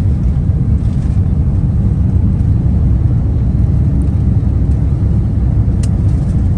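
Airliner cabin noise in flight: a steady low rumble of the jet engines and airflow over the fuselage, with a small click a little before the end.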